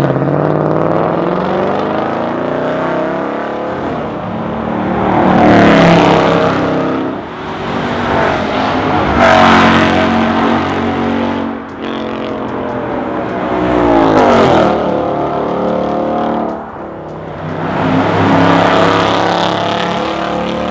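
Ford Mustang GT's 5.0 V8 running through an Armytrix valvetronic exhaust with the valves open, revving up and accelerating in about four loud surges as it drives by. It drops sharply in pitch as it passes about 14 seconds in.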